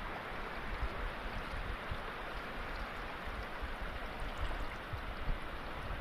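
Choppy river water sloshing and washing, a steady rushing sound with irregular low rumbles.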